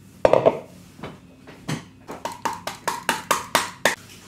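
A spoon scraping and knocking margarine out of a measuring cup into a plastic mixing bowl: one clunk about a quarter second in, then a quick run of taps, about five a second, in the second half.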